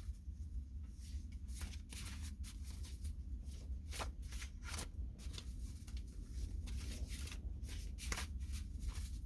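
Tarot cards being shuffled and handled by hand: a run of irregular quick flicks and riffles, over a steady low hum.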